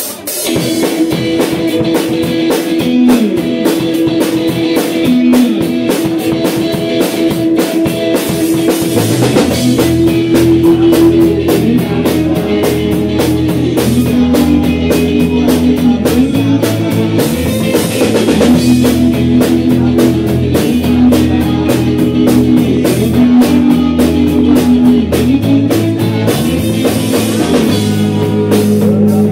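Live rock band playing: electric guitar and drum kit start a song loudly, and a low bass part comes in about nine seconds in.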